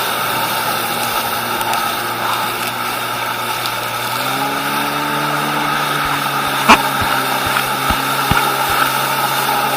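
Stand-up jet ski engine running steadily under way, its pitch rising a little about halfway through. A sharp click and a few short low knocks come near the end.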